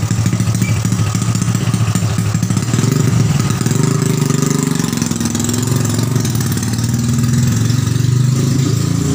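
Small Yamaha Vega single-cylinder four-stroke motorcycle engine, newly fitted in a Honda C70 frame, idling just after being started. It runs loud and a little uneven at first, then settles into a steadier idle about three seconds in.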